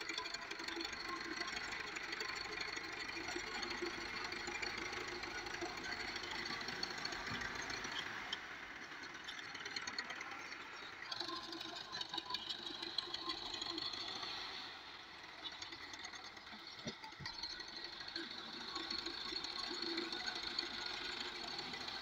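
Belarus MTZ-50 tractor's four-cylinder diesel engine running under load as its front blade pushes soil. The sound is steady, with a brief drop in level about fifteen seconds in.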